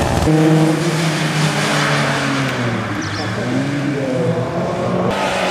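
Historic rally cars driven hard on a sprint stage, two in turn, the engine note climbing and dropping as they accelerate and shift gear.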